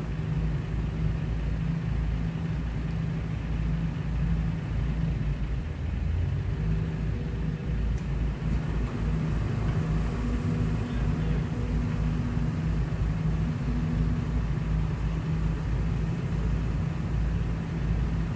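Excavator's diesel engine running steadily as it digs and loads soil into a dump truck, a continuous low drone that gains a slightly higher tone for a few seconds in the middle.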